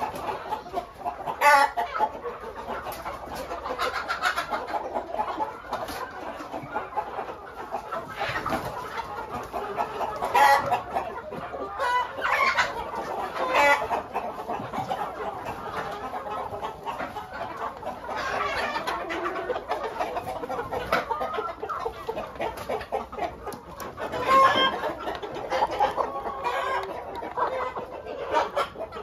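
A flock of hens and roosters clucking and calling over one another, with several louder calls standing out now and then.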